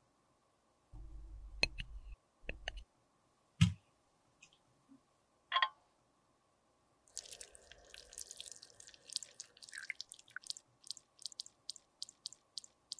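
Melted lipstick poured from a small glass beaker into a metal lipstick mold: a run of short wet drips and squishy clicks, coming faster and more regular, about three a second near the end. Before it, in the first few seconds, a few separate knocks and clicks, the loudest a single thump.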